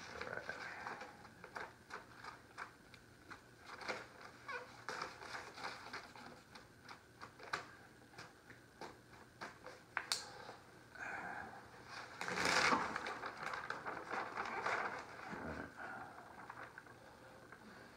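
Faint rubbing and scattered light taps of adhesive vinyl film being smoothed onto a board with a felt-tipped plastic squeegee and handled, with a longer, louder stretch of rubbing about twelve seconds in.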